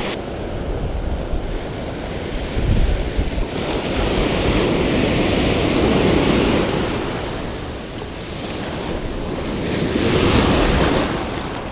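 Ocean surf breaking and washing up the beach, swelling louder over a few seconds in the middle and again near the end, with wind rumbling on the microphone.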